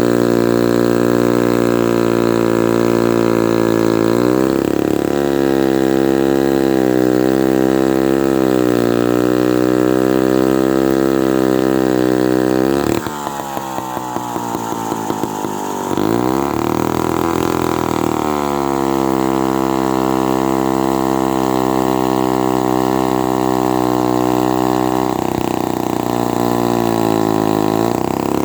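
Lombard 3-1/2D chainsaw engine running hard, its pitch sagging and recovering again and again under the load of cutting dead oak. About halfway it drops off, quieter and lower for a few seconds, then climbs back up to speed.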